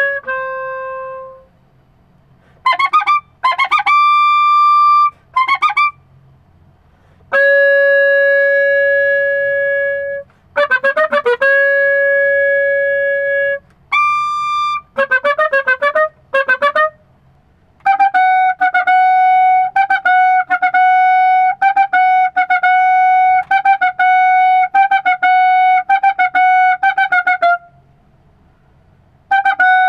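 Soprano clarinet played solo: phrases broken by short pauses, with long held notes and quick runs of notes, then for about ten seconds near the end a single note tongued over and over.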